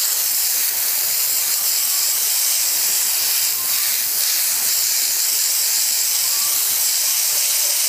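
Garden hose spray nozzle shooting a jet of water onto a whole salmon on a wooden cutting board, hosing off its scales; a steady hiss of spray.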